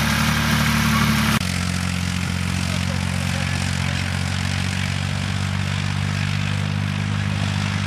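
Tractor engine running steadily at a constant note; about a second and a half in the note changes abruptly to a slightly lower, steady pitch.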